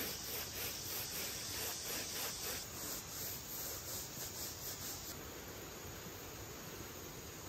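A stiff hand brush scrubbing a wet, soapy mat in quick repeated strokes, then, from about five seconds in, a garden hose spraying a steady hiss of water to rinse the foam off.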